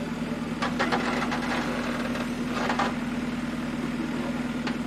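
Backhoe's diesel engine running steadily as the arm digs, with a few short bursts of noise over it about a second in and again near three seconds.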